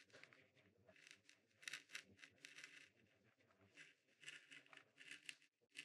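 Faint scratchy scraping of a V-shaped carving gouge being pushed through a wooden printing block, in a few short strokes. The gouge is dull, which makes the cut harder.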